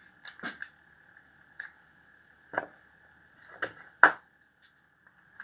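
Scattered small clicks and knocks of a brass piece and hard plastic being handled as the brass is wiggled loose from a 3D-printed part. The sharpest knock comes about four seconds in, over a faint steady high tone.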